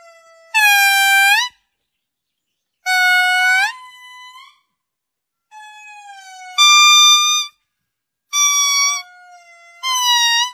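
Indri lemur singing: about five loud, pure wailing notes, each about a second long and rising at its end, some trailed by a softer held note, with short silences between.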